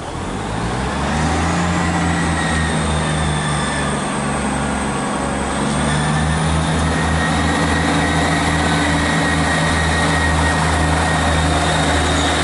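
Class 158 diesel multiple unit pulling away from the platform. Its underfloor diesel engines rise in pitch within the first second, then run in a steady drone under power and step up again about halfway. A high whine rises over the drone around the middle.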